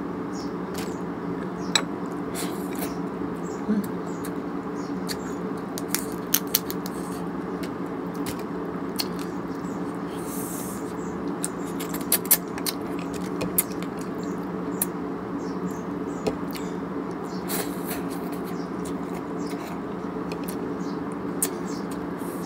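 Eating crab by hand: scattered sharp cracks and clicks of crab shell being pulled apart, and sucking and smacking at the meat, over a steady hum.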